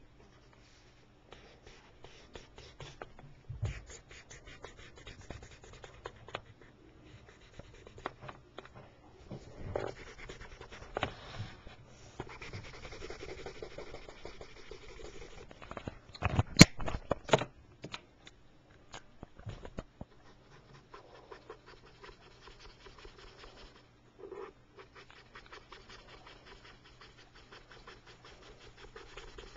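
Colouring tool scratching on paper, with scattered small taps and handling knocks; the loudest is a sharp click a little past halfway.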